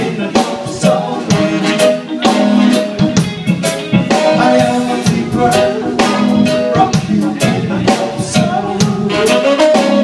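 A live band playing, with a drum kit keeping a steady beat under held pitched notes.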